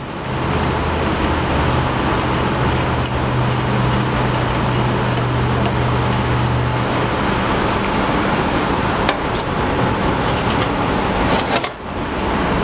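Steady loud rushing noise, like a fan or machine running, with a low hum under it for the first several seconds. The noise drops out briefly near the end. Light clicks and taps of small hardware being handled sound through it.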